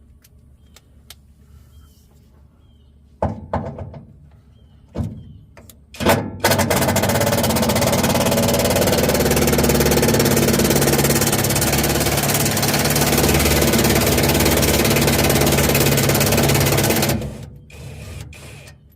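A few short knocks and brief bursts, then a cordless Bauer bit driver runs steadily for about ten seconds, driving a T40 Torx bolt on the truck's steel canister shield plate, and stops near the end.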